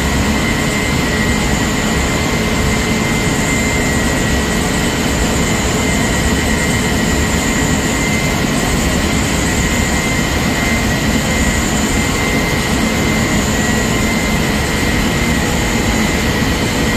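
Multi-station rotogravure printing press running: a steady, loud machine drone with a constant high whine through it.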